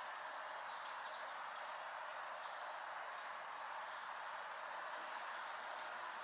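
A small bird gives short, high chirps about once a second, starting about two seconds in, over a steady background hiss.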